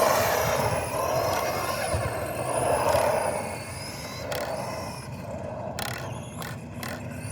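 Arrma Senton 4x4 RC short-course truck running fast on a 3S battery, its brushless motor giving a high whine over tyre noise. The whine is loudest in the first few seconds and fades as the truck moves off.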